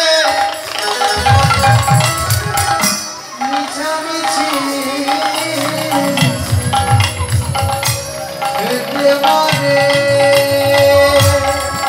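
Bengali kirtan music: a khol drum played in a running rhythm of hand strokes, with a sustained melody and sharp jingling percussion over it. The drumming starts about a second in.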